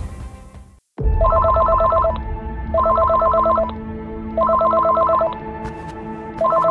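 Electronic telephone ringing in warbling bursts of about a second each, with short pauses between rings. It starts about a second in, after a fading rumble, and rings three times, with a fourth ring starting near the end.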